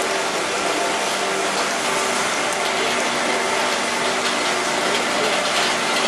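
Automatic train washing plant running: a steady rush of spraying water over a constant mechanical hum.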